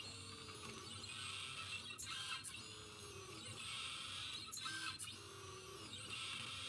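Pen plotter drawing: its stepper motors whine, rising and falling in pitch as the pen carriage speeds up and slows along each curve. Twice the pen-lift servo clicks up and back down, the two clicks about half a second apart, between strokes.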